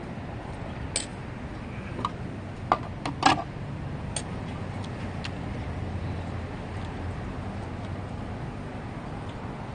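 Steady low hum of street traffic, swelling a little in the middle, with a few short sharp clicks and taps in the first four seconds as the last melted shaved ice is drunk straight from a glass bowl.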